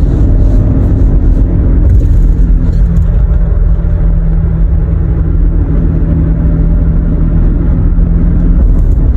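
2012 Toyota Highlander driving at road speed, with loud low road rumble and a steady low drone from a worn wheel bearing that comes in about three seconds in and holds until near the end. The bearing only makes this noise above about 40 mph.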